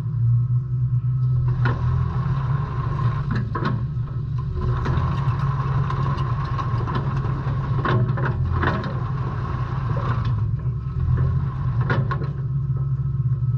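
JCB 8055 mini excavator's diesel engine running steadily with a high steady whine over it, broken by several sharp metallic clanks.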